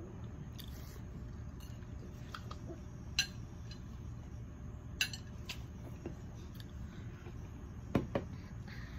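A handful of light clinks and knocks of tableware and an aluminium soda can being handled and set down, the sharpest a quick double knock near the end, over a steady low hum.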